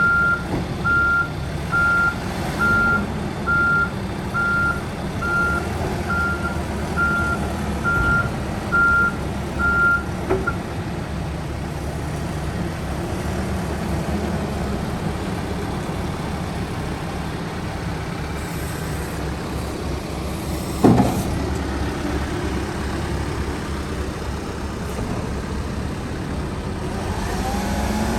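Case 580 Super N loader backhoe's diesel engine running steadily while its reverse alarm beeps about once a second, stopping after roughly ten seconds. About two-thirds of the way through there is a single sharp clank, the loudest sound, and near the end the engine note rises as it speeds up.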